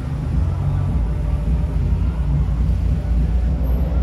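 Street traffic: cars passing through an intersection, a steady low rumble of engines and tyres.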